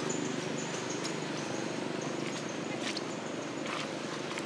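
Outdoor ambience of insects trilling in broken high phrases over a steady low rumble, with a few short high chirps about halfway through.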